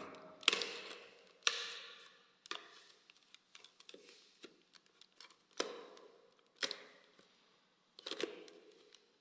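Video doorbell's plastic housing clicking and scraping against its wall-mount bracket as it is pushed down onto the bracket's hooks: an irregular string of sharp clicks and knocks, some with a short scrape after them.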